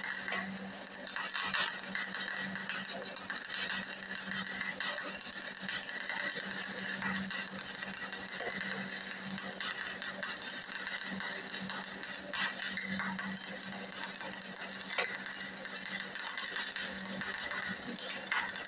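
Hobart Handler 120 wire-feed welder running flux-core wire at its highest amperage setting: a continuous crackling arc over a steady hum, running without tripping the breaker. The machine is set up DCEP, the wrong polarity for flux-core wire, which the owner blames for the horrible beads.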